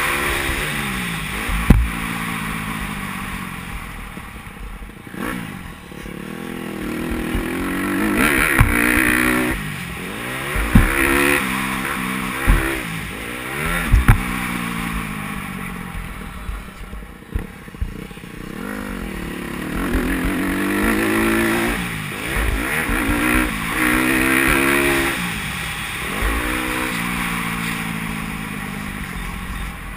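Dirt bike engine revving hard and backing off over and over as the rider works the throttle and gears around a motocross track, its pitch climbing and dropping every few seconds. Sharp knocks cut in several times, most around the middle.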